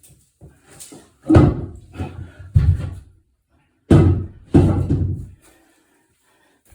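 Porcelain toilet bowl being carried and set down: five heavy thumps and knocks against hard surfaces, each fading quickly.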